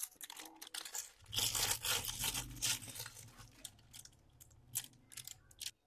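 Thin plastic bag of curry sauce being torn open and crinkled by hand: irregular crackling and rustling, busiest from about one to three seconds in, then a few scattered crackles.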